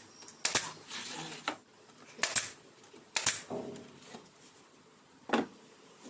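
Four sharp knocks or clacks at uneven intervals, with softer handling noise between them.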